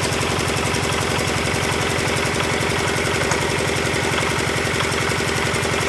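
Engine of a concrete block press machine running steadily with an even, fast pulse.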